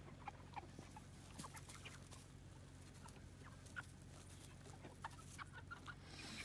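Cornish Cross broiler chickens foraging, with faint, scattered short clucks and peeps over a low steady background hum.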